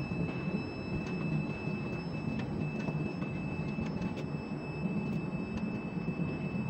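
Ship-to-shore container crane running as its spreader is lowered on the hoist ropes, heard from the operator's cab: a steady low mechanical rumble with a thin steady high whine and scattered light ticks.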